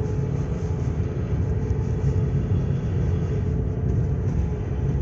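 Opel Astra K engine running steadily, a constant low rumble with no revving.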